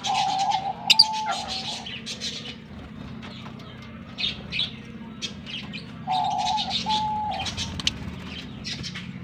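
A flock of lovebirds chattering with many quick, high chirps. Twice a lower, steady note about a second and a half long sounds over the chatter.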